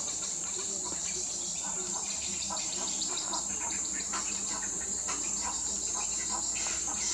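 Steady, high-pitched chorus of insects, crickets or cicadas, with many short ticks and chirps scattered through it.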